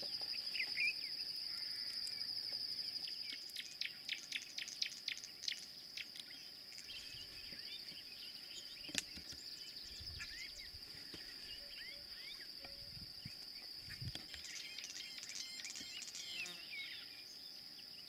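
Steady high-pitched drone of insects, crickets or cicadas, with scattered bird chirps and a short run of rapid clicks about four to five seconds in.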